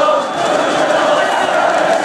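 A large football crowd in a stadium stand chanting in unison, a dense and continuous mass of voices singing a supporters' chant.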